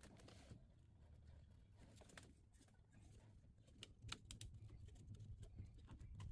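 Near silence: faint room tone with scattered light clicks and ticks.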